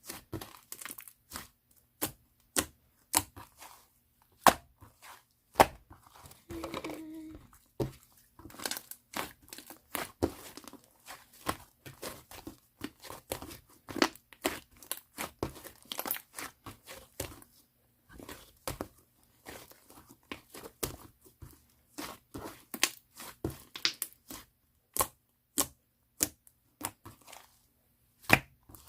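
Pink slime being squished, stretched and pressed by hand: an irregular run of sharp pops and crackles as air pockets in the slime burst.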